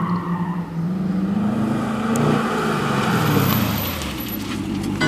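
Sports car engine accelerating as the car approaches and passes close by, the engine note rising and then falling away.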